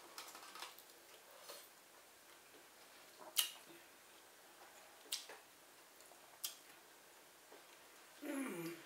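Close-up mouth sounds of a person eating seafood: quiet chewing with sharp, wet lip-smack clicks a second or two apart. Near the end a short hum that falls in pitch.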